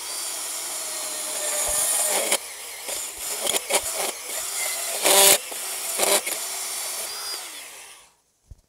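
Ryobi cordless compact band saw cutting through a metal bimini top tube, with several sharp, louder spikes in the cut where the saw is being bent while it cuts. The motor runs down and stops about eight seconds in, as the cut finishes.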